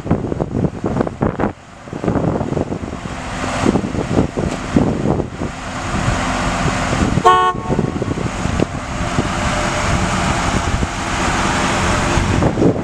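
A single short car-horn toot about seven seconds in from the 1995 Pontiac Firebird Firehawk, heard over its engine running and heavy wind noise on the microphone.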